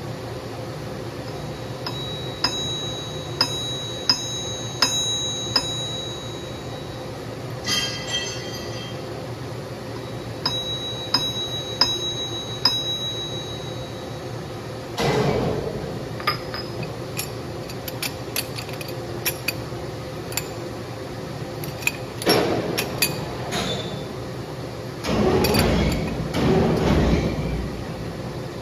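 Metal lathe running with a steady hum, with sharp metallic clinks that ring like a small bell in the first half. Later come a few rough noisy bursts about a second long, the longest two near the end.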